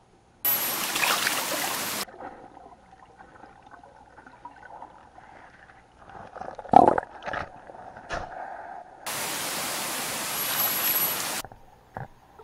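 River water rushing and churning against a camera held underwater: two spells of loud rushing hiss, each about two seconds long, start and stop abruptly. Between them comes a soft watery murmur with a few sharp knocks.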